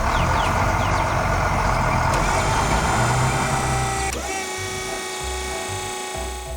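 Truck engine sound effect running steadily. About four seconds in it changes abruptly to a steady sound made of several held tones.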